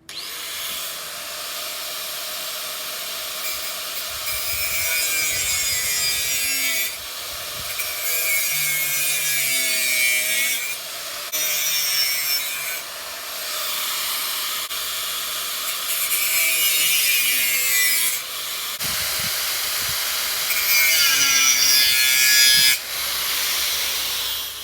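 A tool cutting or grinding metal in runs of a few seconds with short breaks, its pitch wavering as the cut loads it.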